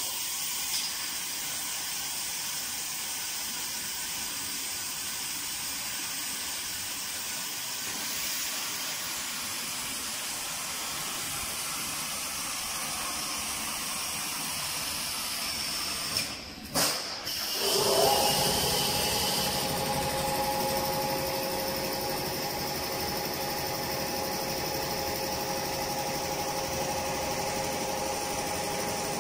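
Meat-stick processing line machinery running with a steady high hiss. After a brief break about 17 s in, it gets louder and a steady hum with a couple of held tones joins.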